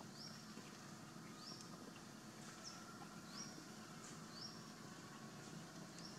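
Faint high chirps, each a quick upward sweep, repeating roughly once a second over low background noise.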